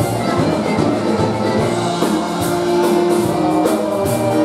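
Live polka dance band playing: accordion and saxophone over a drum kit keeping a steady beat.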